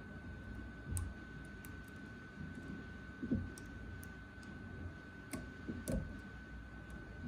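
Scattered light metallic clicks of a lock pick and tension wrench working the spool pins inside an Assa 600 lock cylinder, with a few soft handling bumps. A faint steady high tone runs underneath.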